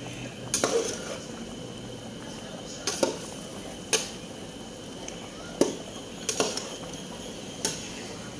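Kitchen utensils knocking and clinking against cookware: a handful of sharp, irregular knocks, some in quick pairs, over a steady low background.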